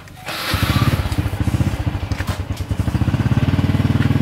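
A small engine comes up about half a second in and then runs steadily with an even, rapid chugging beat.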